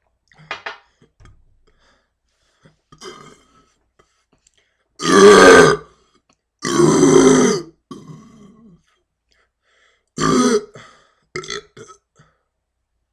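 A person burping on purpose, one burp after another: two long, loud burps about five and six and a half seconds in, a shorter one near ten seconds, and smaller, quieter sounds between them.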